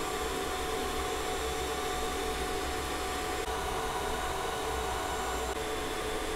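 Creality CR-5 Pro H 3D printer running a PETG print: a steady whir of its fans with faint motor tones that shift a couple of times.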